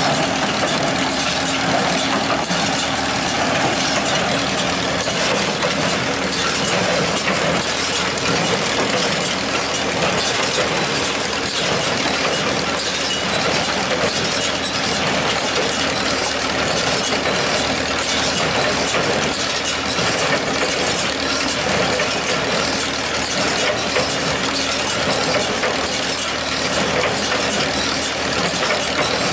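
Old John Deere 216 wire-tie hay baler working, its four-cylinder Wisconsin engine running steadily under a continuous clatter of the baler's gears and moving parts.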